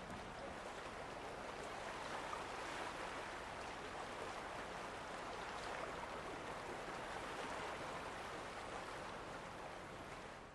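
Sea waves washing steadily on a shore, swelling slightly over the first couple of seconds and fading near the end.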